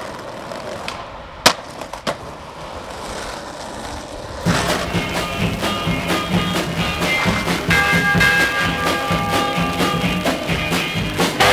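Skateboard wheels rolling over brick paving, with a sharp clack of the board about a second and a half in. About halfway through, music comes in and carries on.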